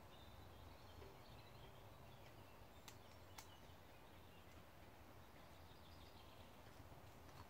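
Near silence: faint outdoor lakeshore ambience with a low steady rumble and faint distant birdsong, and two faint clicks about half a second apart around three seconds in.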